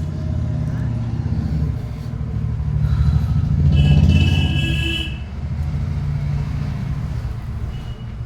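Steady low engine rumble from a motor vehicle running close by. A brief high-pitched tone sounds about four seconds in, over the rumble as it swells.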